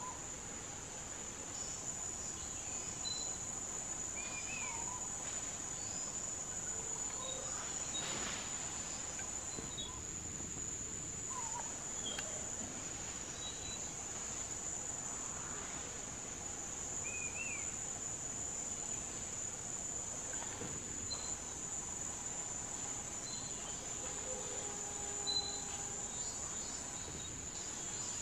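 Steady high-pitched drone of forest insects, with a few faint short chirps scattered through.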